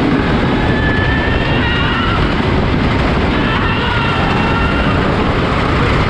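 Riding a roller coaster at speed: a loud, steady rushing and rumbling of the moving train, with faint wavering high sounds over it.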